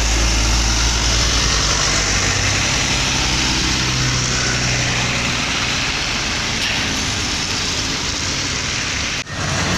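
Diesel dump trucks driving past on the road: steady engine rumble with tyre and road noise. The sound drops out for a moment about nine seconds in.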